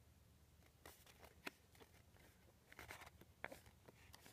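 Near silence with a few faint clicks and a brief rustle from fingers handling the driver-bit case.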